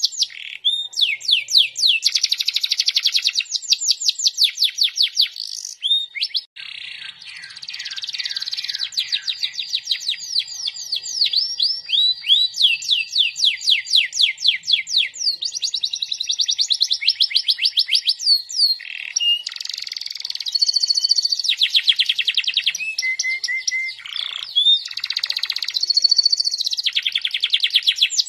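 Domestic canary singing continuously, phrase after phrase of rapid trills made of fast repeated high sweeping notes, with a brief break about six seconds in.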